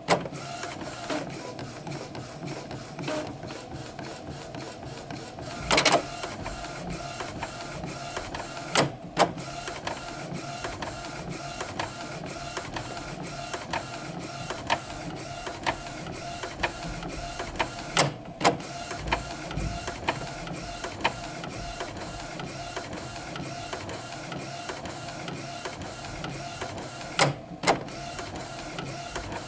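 Epson Stylus Photo R270 inkjet printer running with a steady whine and a train of small regular clicks. Louder knocks come in pairs about every nine seconds. Knocking in this printer is the fault the owner reports at the end of its calibration routine, together with printing drifting to the left.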